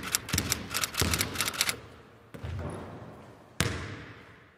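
Percussive sound effects of an animated logo intro: a quick run of sharp clicks mixed with heavy hits over the first second and a half, then two more separate heavy hits that each die away, the last fading out.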